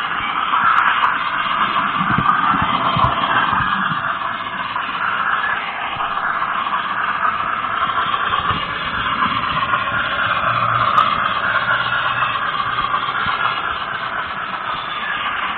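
Steady running noise of a train, an even rushing sound with a few low thuds in the first few seconds.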